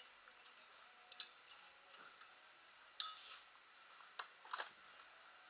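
Scattered clinks and clicks of small metal tools and parts being handled on a workbench during a scooter repair, the loudest about three seconds in.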